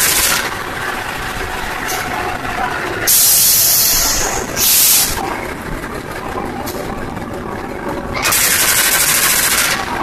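Diesel-electric locomotive CC204-05 with its engine running steadily, and loud bursts of air hissing over it. One burst fades about half a second in, another lasts over a second from about three seconds in, a short one follows near five seconds, and a last one comes from about eight seconds in. This is the odd-sounding engine of this locomotive.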